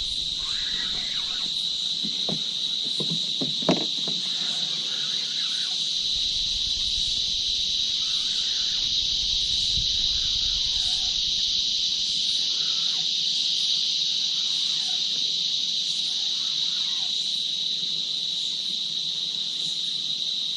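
Steady, high-pitched insect chorus holding one even buzz, with a few faint knocks in the first few seconds.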